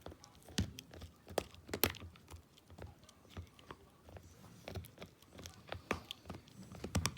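Shiba Inu gnawing on a Kamikami Bone chew: irregular clicks and cracks of teeth on the hard chew, a few a second.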